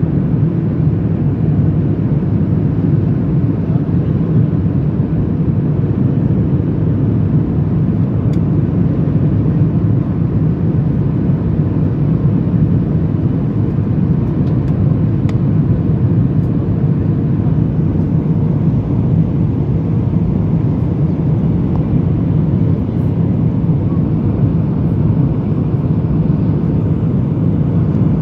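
Steady low rumble of cabin noise inside a Boeing 737-800 on approach with flaps extended: its CFM56-7B jet engines and the airflow over the airframe.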